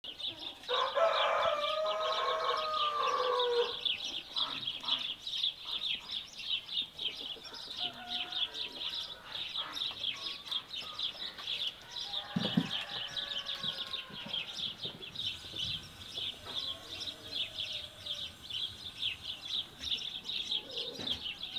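A rooster crows once, a call of about two and a half seconds beginning about a second in, over steady high chirping of small birds. A shorter call falling in pitch comes about halfway through.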